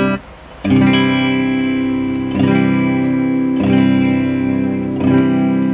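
Modified Fender Japan ST54-95LS Stratocaster electric guitar played clean through a flat-sounding transistor amp, rear pickup, mid booster set at zero: full chords strummed and left to ring, a new chord about every second and a half, after a brief muted gap near the start.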